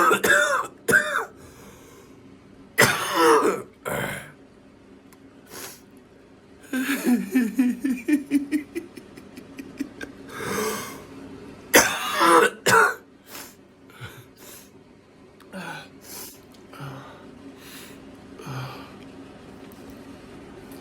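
A person coughing and clearing their throat in repeated fits: single harsh coughs, a rapid run of short hacking coughs about seven seconds in, and quieter coughs near the end.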